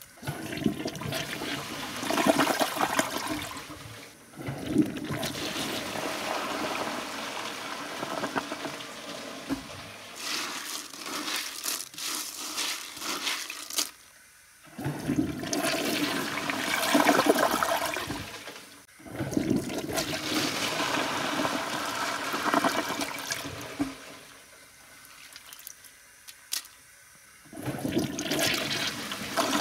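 A toilet flushing again and again with cereal in the bowl: several separate stretches of rushing, gurgling water, each starting and stopping abruptly.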